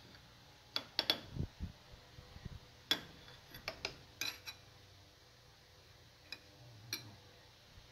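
Metal spoon clinking against a glass bowl and saucer: light, sharp taps scattered irregularly, several close together about a second in and again around three to four and a half seconds in, with a few soft handling thuds.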